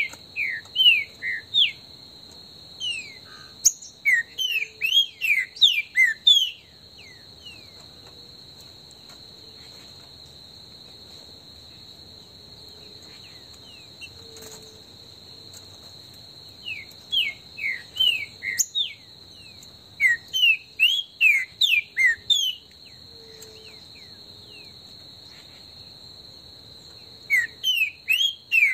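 Green-winged saltator (trinca-ferro) singing loud bouts of quick, falling whistled notes, about four a second, in three bouts: at the start, midway and again near the end. A steady high insect drone runs underneath.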